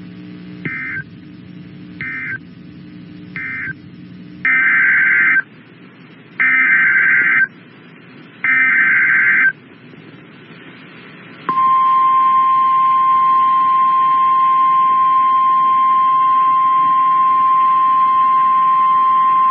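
NOAA Weather Radio Emergency Alert System tones. First come three short data bursts, the end-of-message code closing the previous alert. About four seconds in come three one-second SAME header data bursts. Then the steady single 1050 Hz attention tone is held for about nine seconds, announcing a new warning.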